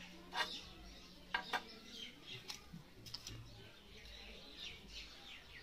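Small birds chirping in the background, short falling chirps coming more often near the end. A few sharp clicks and knocks in the first three seconds as a small glass vial is handled and stood upright on a wooden floor.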